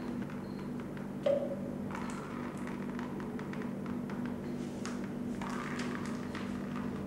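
A steady low hum with scattered light taps and knocks, and one louder knock about a second in.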